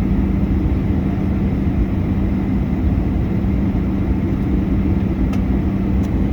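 Steady jet airliner cabin noise of a Boeing 737-800 in flight: a low rumble from the engines and the airflow, with a constant hum. Two faint ticks come near the end.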